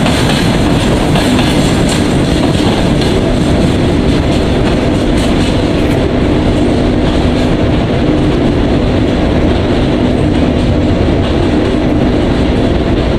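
Freight train of open gondola wagons rolling along the rails: a steady rumble and rattle of wheels over the track with clickety-clack of rail joints, a steady low tone joining about three seconds in. The higher hiss thins about halfway through as the last wagons draw away.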